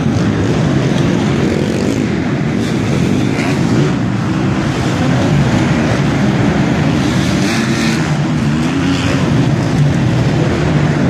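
Motocross bike engines running hard over a jump, their pitch rising and falling as the riders work the throttle, with more than one bike heard at once.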